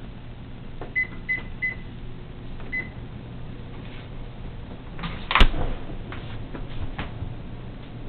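Four short high electronic beeps from a GE refrigerator's control panel, three in quick succession about a second in and one more a second later, over a steady low hum. A single sharp knock comes a little past the middle.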